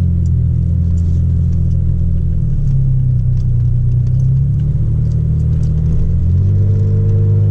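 Toyota Tacoma's exhaust heard from inside the cab while the truck drives: a steady, loud, low drone whose note changes about two and a half seconds in and again about six seconds in.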